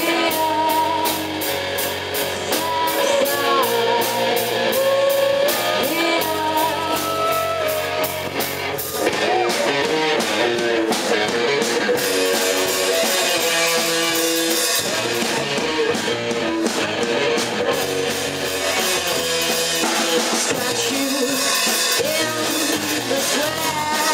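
Live rock band playing loud: a Pearl drum kit with fast, even cymbal strokes through the first part, electric guitar and bass, and a woman singing.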